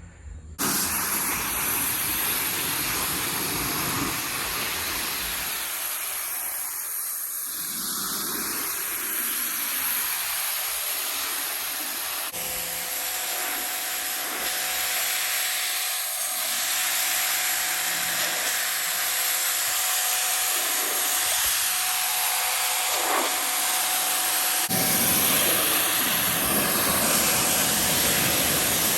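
Bauer 2300 pressure washer jet spraying down a UTV: a steady, loud hiss of high-pressure water that starts abruptly about half a second in, its tone shifting as the spray strikes different surfaces.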